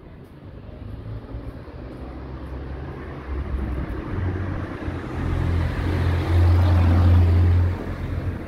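A road vehicle passing close by, its tyre and engine noise building to a peak about seven seconds in and then dropping away. Wind buffets the microphone with a low rumble.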